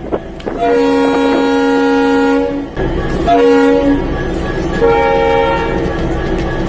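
Locomotive horn sounding three times, a long blast, a short one and a medium one, over the steady rumble of a running train.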